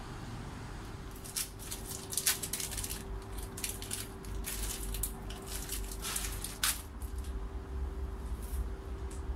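Plastic biscuit wrapper crinkling as it is handled and torn open, in quick irregular crackles that go on for about six seconds and then stop. A steady faint hum and a low rumble sit underneath.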